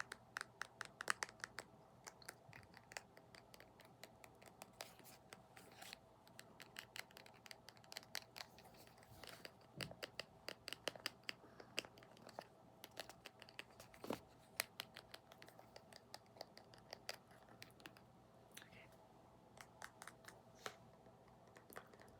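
Close-miked fingernail tapping and scratching on a small object: rapid crisp clicks in runs of several a second, with brief pauses between runs.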